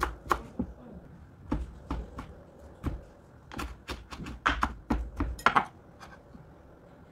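Kitchen knife chopping fresh herbs on a wooden cutting board: irregular sharp knocks of the blade hitting the board in short clusters, stopping about six seconds in.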